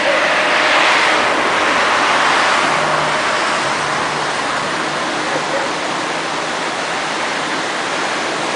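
A river in full flood rushing past: a loud, steady rush of fast-moving floodwater. A faint low hum sits under it for a couple of seconds about three seconds in.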